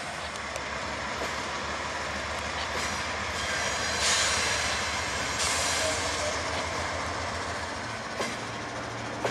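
Norfolk Southern diesel locomotives on a freight train passing close. A steady low engine rumble sits under the rush of steel wheels on rail, with two louder surges of high hissing wheel noise about four and five and a half seconds in.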